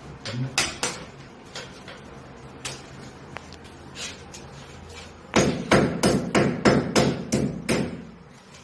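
Hammer blows: a few scattered strikes, then, from about five seconds in, a quick run of about eight strikes at roughly three a second.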